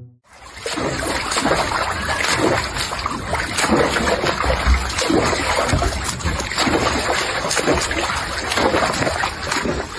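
Water splashing, a dense continuous churn with many small sharp splashes throughout.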